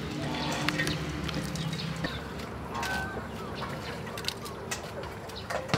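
Outdoor rural ambience with birds chirping faintly and scattered small clicks and knocks.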